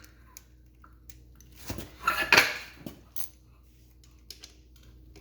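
Metal hand tools clinking against each other and on metal, with a louder rattle of tools about two seconds in, as work starts on removing the dirt bike engine's cam chain tensioner.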